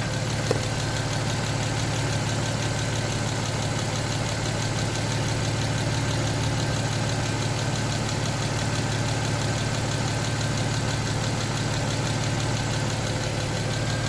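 Land Rover LR2 engine idling steadily with the air conditioning switched on, with one faint click about half a second in.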